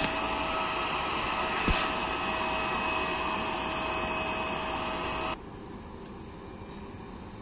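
E.464 electric locomotive's blowers and electrical equipment running with a steady whine and rush of air, with a sharp click about two seconds in. The noise cuts out abruptly a little after five seconds, leaving a quieter steady hum.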